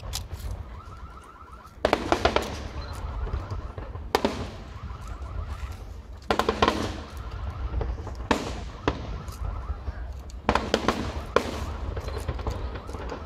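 Fireworks display: aerial shells bursting in volleys of sharp bangs that echo, a few seconds apart, over a steady low rumble.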